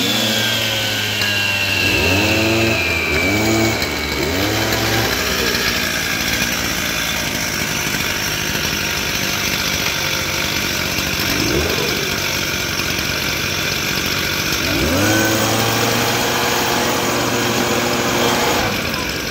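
Stihl TS 420 two-stroke cut-off saw cutting through patio pavers, its engine revving up and dropping back several times with long stretches at high speed in between.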